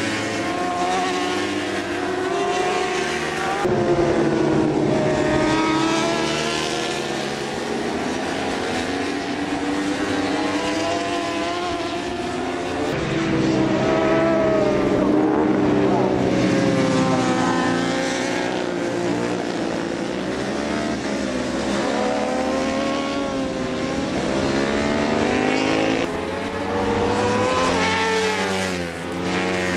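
Several racing motorcycle engines at high revs, their pitch repeatedly climbing and dropping as they accelerate, shift gear and brake for corners. The mix changes abruptly a few times.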